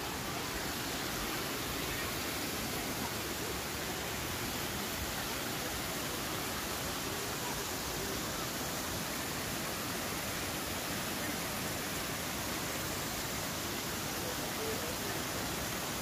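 Steady, unbroken rush of running water.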